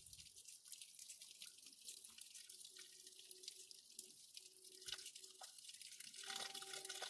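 Faint water trickling and dripping as the concrete pond is filled from above, getting a little louder near the end.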